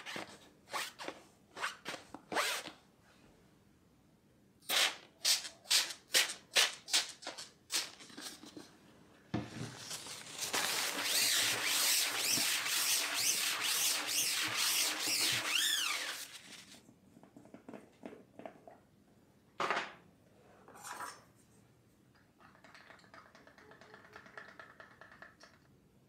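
Hands and a damp cloth rubbing over a tensioned screen-printing mesh: a run of short strokes, then about six seconds of steady wiping starting about nine seconds in, with a couple of single knocks afterwards.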